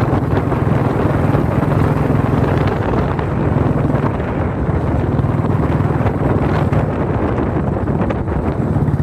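A motor vehicle's engine running steadily under way, with wind buffeting the microphone.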